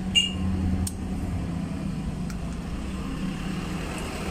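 An amplifier's main relay clicking on, heard as a couple of sharp clicks in the first second over a steady low hum. The relay engages now that its connections are attached.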